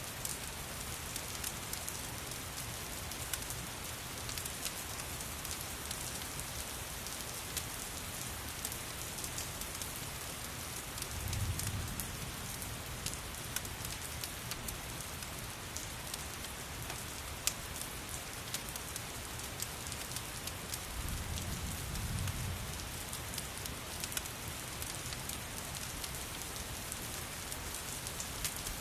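Steady rain with the sharp pops and crackles of a wood fire scattered through it. Twice a low rumble swells up and fades, about a third and about three quarters of the way through.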